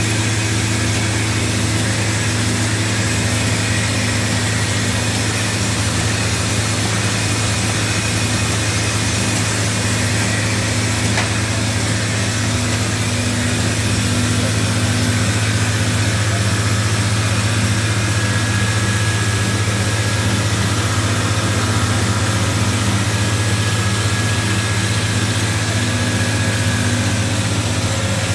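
W+D envelope window patching machine running steadily: an even mechanical running sound with a constant low hum and a few faint higher tones.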